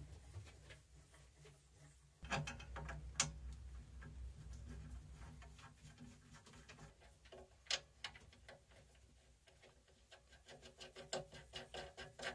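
Faint handling noises from fitting rubber feet to the base of a benchtop wood lathe: scattered clicks and taps with some rubbing, a few sharper single clicks, and a low rumble for a few seconds from about two seconds in. A quick run of small ticks comes near the end.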